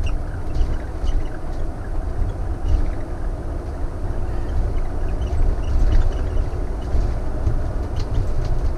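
Cabin noise of a Thor Vegas motorhome driving at town speed: a steady low rumble of engine and road, with small ticks now and then.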